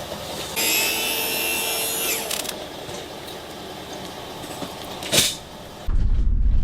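A mechanical rattling and grinding noise lasting about a second and a half, followed near the end by a short loud rush of noise.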